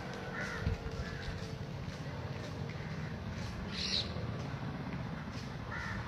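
Short harsh animal calls, one about half a second in and one near the end, over a steady low rumble.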